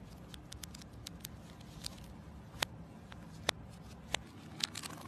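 Spoon scooping and scraping soft chocolate ice cream with bits of chocolate shell in a Magnum tub. Faint scattered clicks and ticks, three sharper clicks in the middle and a quick flurry near the end, over a low background rumble.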